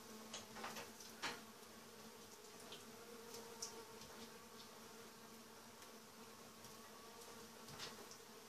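Faint scraping and a few soft clicks of a knife cutting wax cappings and comb off a wooden honey frame, over a faint steady buzzing hum.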